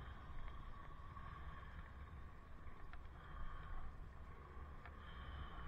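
Low wind rumble on a helmet camera's microphone during a bike ride through traffic, with a faint steady hum and two light clicks about three and five seconds in.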